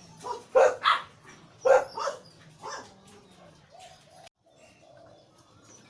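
Six short, loud calls in the first three seconds, then a zebra dove cooing softly in low, even notes.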